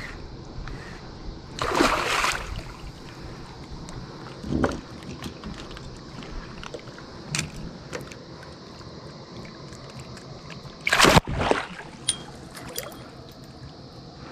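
A hooked fish thrashing and splashing at the water's surface beside a kayak, over a steady lapping of water. There is a longer splash about two seconds in, smaller splashes near four and seven seconds, and the loudest, sharpest burst of splashing near eleven seconds.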